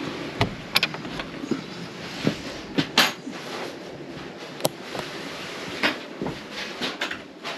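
A wooden plank door opened, then footsteps and scattered knocks and clicks in a small room, over a steady hiss.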